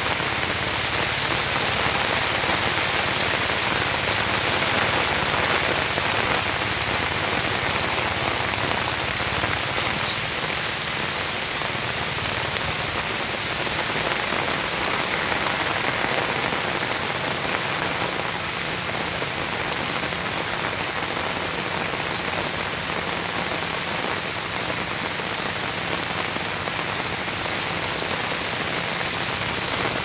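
Steady rain falling on dense leaves, grass and standing water, an even hiss that holds without a break.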